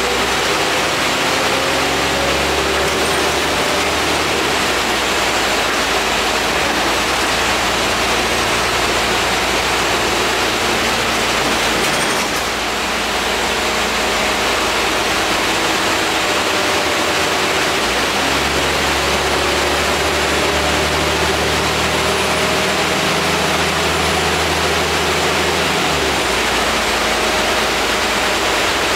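Inside an Alexander Dennis Enviro 400 double-decker bus under way: steady air-conditioning and road noise with the diesel engine's low hum and a faint whine that rises and falls in pitch as the bus speeds up and slows.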